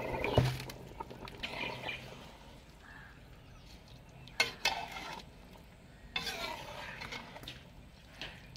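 Soaked rice going into a kadhai of boiling water and being stirred with a metal spoon: faint bubbling and stirring, with two sharp clicks about halfway through.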